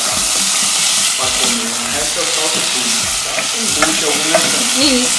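Pufferfish pieces and onion sizzling in oil in a saucepan as they brown, with a cooking spoon stirring and scraping them across the pan bottom in repeated strokes over the steady sizzle.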